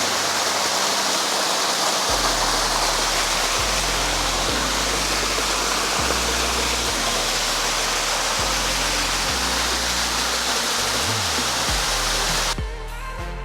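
Steady rush of a small spring-fed waterfall falling about 40 feet, with a background music bass line coming in about two seconds in. Near the end the water sound cuts off suddenly and the music carries on alone.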